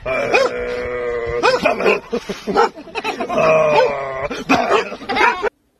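Young dogs play-fighting, giving long drawn-out howling cries broken by short rising yelps. The sound cuts off suddenly about five and a half seconds in.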